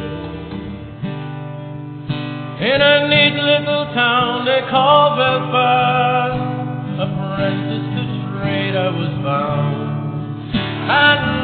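A song: a singer accompanied by acoustic guitar, with the voice coming in about two and a half seconds in and singing sustained, slow phrases.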